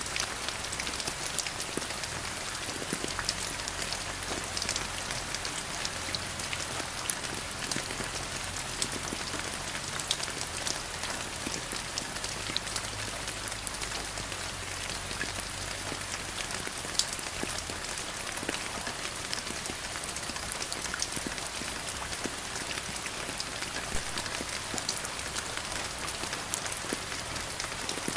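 Steady rain falling on a surface, a continuous hiss dotted with many small individual drop ticks.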